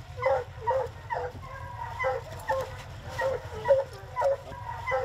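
Hounds in a truck's dog box barking in short calls, about two a second, over the low, steady running of the pickup's engine.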